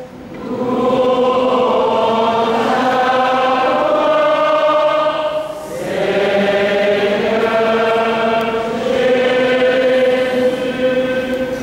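Choir singing the chanted response to the Gospel acclamation, in two long sung phrases with a short break about halfway.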